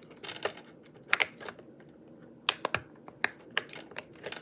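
Small plastic fidget toys being handled, giving a run of short, sharp, irregular clicks and taps.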